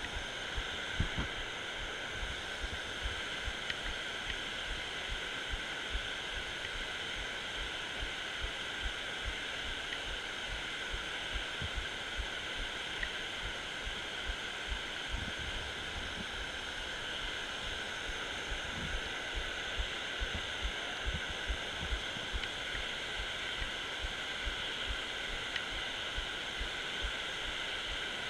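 Steady rush of water pouring over a low dam spillway, with frequent soft, irregular low thumps close to the microphone.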